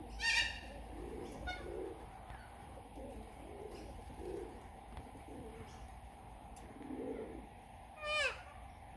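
Little corellas calling from overhead wires: a harsh call just after the start and a quick, falling screech near the end stand out as the loudest sounds. Soft low cooing sounds repeat about once a second throughout.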